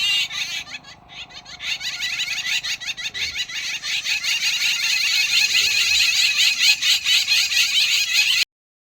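Birds calling in a dense chorus of rapid, high chirps and chatter, dipping briefly about a second in, then building again before cutting off suddenly near the end.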